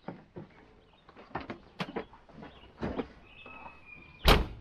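Someone climbing into a tractor cab: scattered knocks and clunks from the step, handholds and seat, then the cab door shutting with one loud bang near the end.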